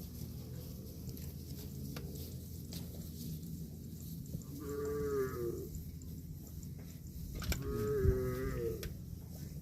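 Cow mooing twice: two short, fairly high-pitched moos of about a second each, the first about halfway through and the second near the end, with a sharp click just before the second.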